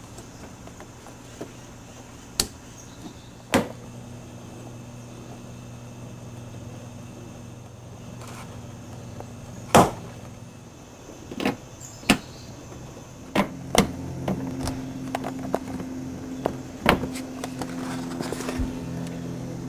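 Scattered sharp knocks and clicks, the loudest about ten seconds in, coming closer together in the second half, over a steady low hum that thickens about thirteen seconds in.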